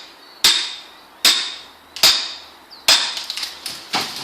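Heavy tool strikes into wood, evenly paced about one every 0.8 seconds, four in a row, each ending in a short ring. Near the end they give way to a quicker run of lighter cracks and clicks.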